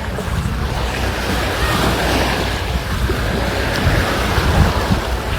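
Sea surf washing onto the beach, the hiss of the wave swelling about two seconds in, with wind rumbling on the microphone.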